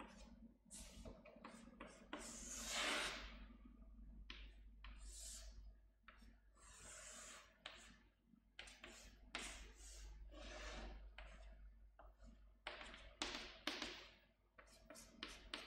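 Chalk drawing on a chalkboard: faint, irregular scraping strokes and light taps, a few of them longer sweeps.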